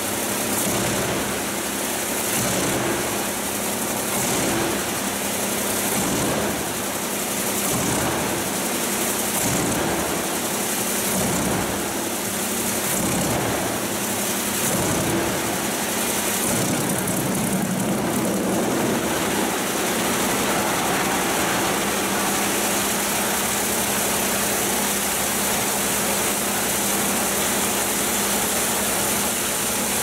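Pezzolato drum wood chipper, driven by a 160 kW electric motor, chipping a log: a loud, steady grinding noise of the drum cutting wood over a constant motor hum. Knocks are scattered through the first half.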